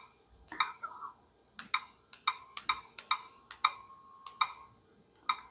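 Keyboard clicks from the Loop digital frame's touchscreen as a Wi-Fi password is typed: about fifteen short, pitched ticks in uneven clusters, one for each key tap.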